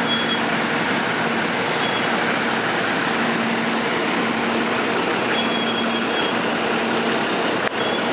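Steady vehicle running noise with a faint low hum, and a single sharp click near the end.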